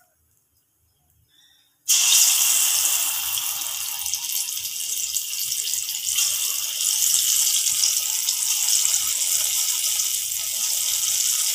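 Palm-fruit fritter batter sizzling as it deep-fries in hot oil: a loud, steady hiss that starts suddenly about two seconds in.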